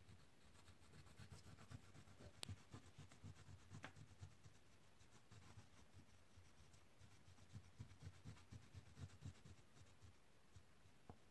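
Faint rubbing of an oil pastel stroked back and forth across paper in short, uneven strokes, with one light tick about two and a half seconds in.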